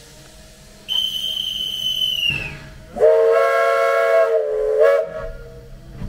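A guard's whistle sounds one shrill steady note for about a second and a half, dropping in pitch as it cuts off. The 1897 Baldwin steam locomotive No. 1 then answers with its chime whistle, several notes sounding together for about two seconds: the guard's signal to depart and the engine's reply.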